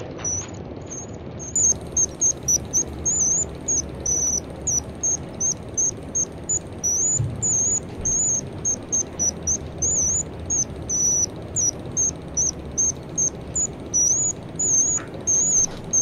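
Jaquet Droz Charming Bird watch's automaton singing: its mechanical bird whistle plays a long run of short, high, warbling chirps, about three a second, growing louder about a second and a half in.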